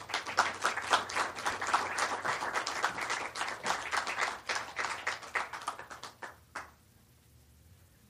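Audience applauding, dying away about six and a half seconds in.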